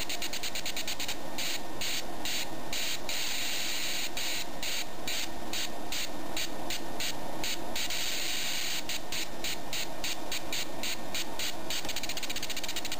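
High-voltage spark crackling at a modified spark plug fed by an ignition coil and a 555-timer gating circuit: a hissing buzz switched on and off several times a second by the gating, the pulse rate changing, with a couple of short stretches where it runs unbroken.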